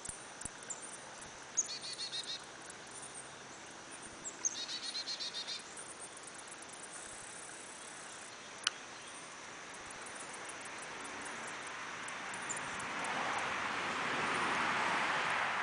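Garden ambience: insects chirping in rapid high-pitched pulses, two short trilled calls a few seconds apart, and a broad rushing noise that swells over the last five seconds.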